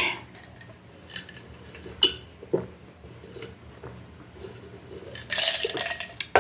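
Ice clinking in a glass of iced cola as it is handled, sipped from and set back down on a wooden table: a few sharp clinks, then a longer breathy noise near the end.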